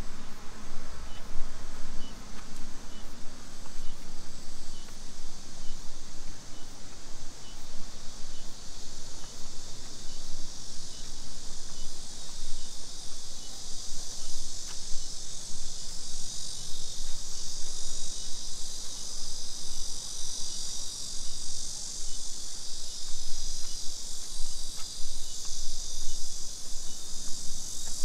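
Steady high-pitched insect buzzing, growing louder about halfway through, with a faint regular chirp about twice a second and a low background rumble.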